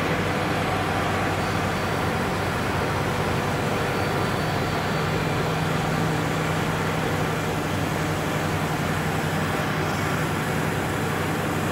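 Automatic corrugated partition assembly machine running: a steady mechanical hum with a noisy wash over it, without clear strokes or pauses.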